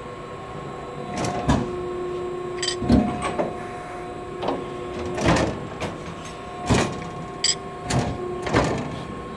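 Press brake cycling its ram: a steady machine hum that shifts between pitches as the ram moves, broken by several sharp clunks. Two brief high chirps come about a third of the way in and again near the end.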